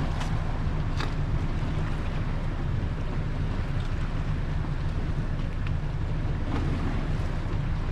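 Gale-force wind buffeting the microphone in a steady low rumble, with a few faint ticks.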